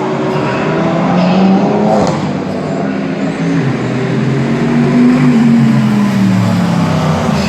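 Racing car engines at speed on a circuit. One engine note climbs to a peak about five seconds in and then falls away.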